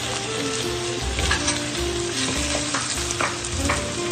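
Pork belly with shrimp paste and lemongrass sizzling in a non-stick frying pan over the heat, with a wooden spatula stirring and scraping the pan every second or so. The mixture is being fried down toward the end of cooking.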